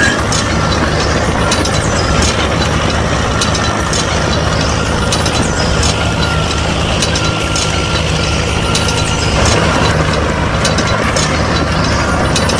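A DIY mini tractor's small motor running steadily with a low hum and a faint high whine, with light clicks scattered throughout.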